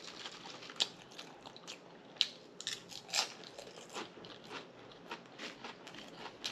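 Close-miked chewing of crisp potato chips: a string of sharp, irregular crunches between mouthfuls.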